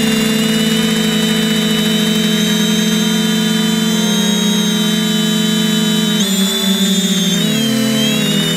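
Multirotor drone's electric motors and propellers whining steadily in a hover, heard close up from on board as several layered tones. About six seconds in, and again near the end, the motor pitches shift and glide as the motor speeds change while the drone turns.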